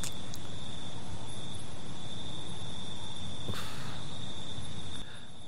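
Crickets trilling in one steady high-pitched chirr over a soft background hiss of night ambience, with a brief soft rustle a little past halfway; the whole bed drops quieter near the end.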